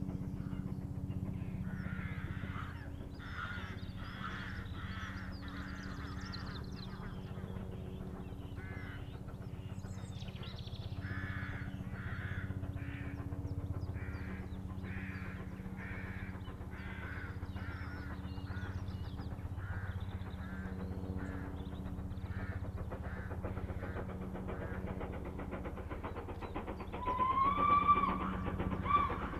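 Crows cawing over and over, over a steady low hum. Near the end a loud pitched tone rises and briefly peaks.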